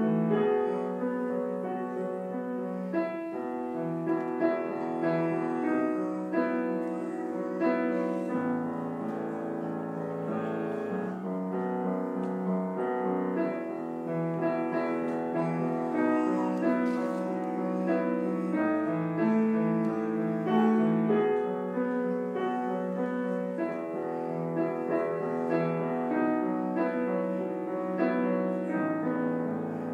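Grand piano played solo: an unbroken flow of notes and chords, with the low bass notes changing every few seconds.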